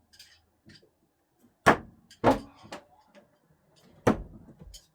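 Thrown screwdrivers striking a throwing target: three sharp impacts, the first two about half a second apart and the third nearly two seconds later, with fainter knocks after them.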